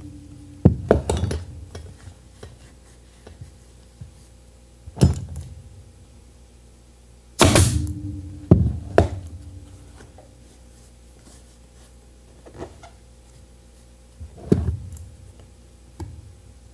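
Pneumatic upholstery staple gun firing staples through leather into a wooden chair frame: about eight sharp shots at irregular intervals, some in quick pairs, a few followed by a short hiss of air.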